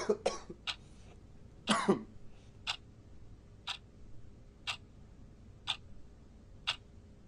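A person coughing twice in the first two seconds, then a clock ticking once a second.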